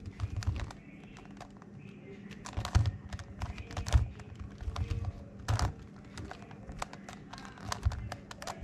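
Megaminx puzzle being turned by hand: its plastic faces click and clack irregularly, in quick clusters, as the layers are twisted.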